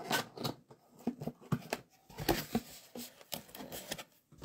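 A cardboard product box being opened by hand: flaps pulled open and a paper leaflet inside rustling, in a string of short, irregular rustles and taps.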